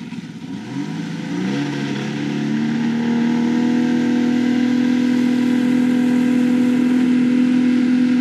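Jet boat engine speeding up as the boat gets under way. Its pitch rises over the first couple of seconds, then holds steady at speed.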